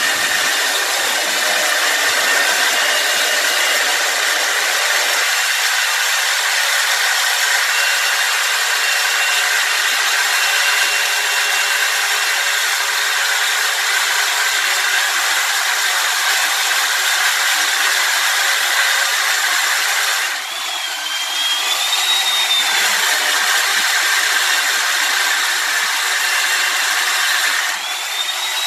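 Handheld electric power tool cutting into a concrete floor: a steady, loud grinding noise with a high motor whine. Twice, about two-thirds of the way in and again near the end, the load eases and the whine rises in pitch.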